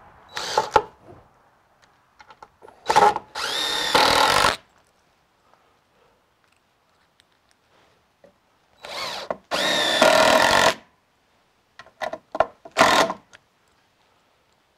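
Cordless drill-driver driving screws into a new wooden stair handrail, twice. Each time a short blip of the motor is followed by a run of about a second, and the second screw ends in a few short pulses as it is snugged down.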